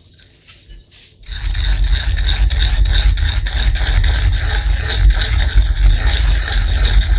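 Wooden surikogi pestle grinding miso round the ridged inside of an earthenware suribachi mortar: a continuous rapid scraping with a low rumble, starting about a second in.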